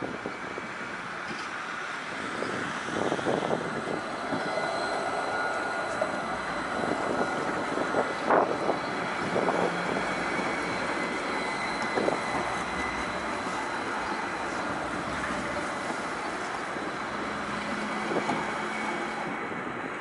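NJ Transit Hudson-Bergen Light Rail tram running along street track, with a steady noise of running gear and a thin steady high whine. A few short knocks are heard, the loudest about eight seconds in.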